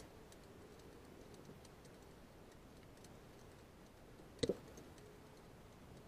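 Faint metallic clicks and taps as a compression-tester adapter is handled and threaded by hand into a diesel engine's cylinder head, with a sharper double click about four and a half seconds in.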